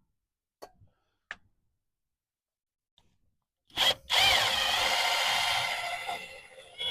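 Handheld power tool motor whirring in two runs: it starts abruptly about four seconds in, with a wavering pitch, fades out briefly, and starts again near the end. A couple of light clicks come before it.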